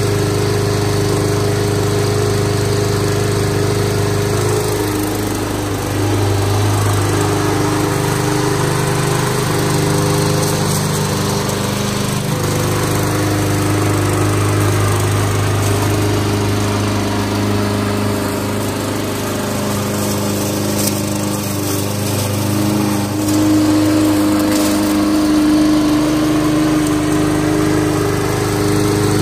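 Briggs & Stratton 300E Series 125 cc single-cylinder engine on a walk-behind lawn mower running steadily while being pushed through grass, its note shifting slightly now and then. The engine was recently started and is still warming up.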